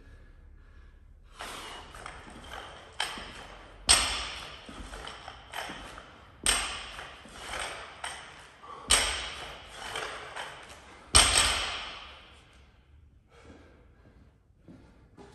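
Barbell loaded with 61 kg of bumper plates being power cleaned and dropped to the floor: about four heavy thuds, roughly two and a half seconds apart, each with a metallic ring from the bar and plates, with lighter clanks between. The impacts stop a few seconds before the end.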